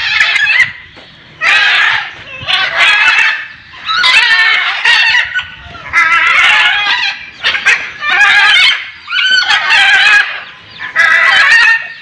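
Macaws squawking: loud, harsh calls one after another, about one a second.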